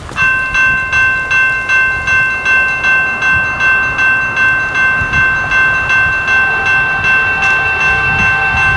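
General Signals Type 2 electronic crossing bell starting up just after the start and ringing at about two and a half strokes a second, each stroke leaving a sustained ringing echo: the crossing has been activated by an approaching train.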